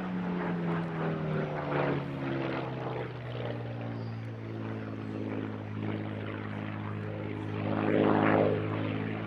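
Supermarine Spitfire PR XI's Rolls-Royce Merlin V12 engine as the aircraft flies a display pass. The engine note falls in pitch over the first second or two as it passes, then holds steady, growing louder about eight seconds in.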